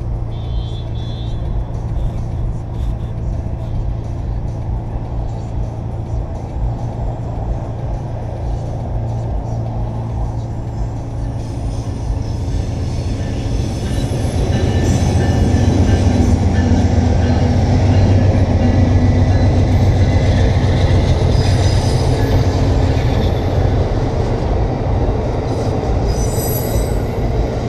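Amtrak passenger train passing a railroad crossing, heard from inside a waiting car over a steady low hum. The rumble grows louder about halfway through as the train reaches the crossing and goes by.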